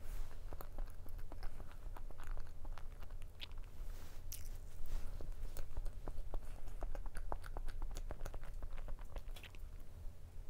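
Close-miked chewing of soft cream-filled roll cake: a steady run of small mouth clicks, with a sip of milk near the end.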